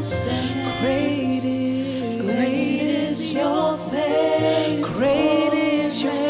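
Contemporary worship song: sung vocals with vibrato over sustained keyboard-like chords and a held bass.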